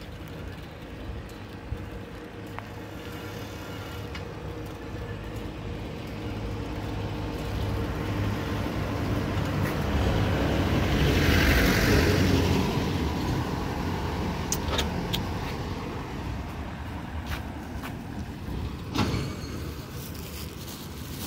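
A motor vehicle passing along the street, its engine and tyre noise swelling to a peak about halfway through and then fading away. A couple of short clicks near the end.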